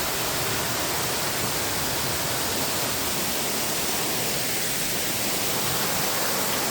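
Dzhur-Dzhur waterfall in heavy flow: a steady, even rush of falling water.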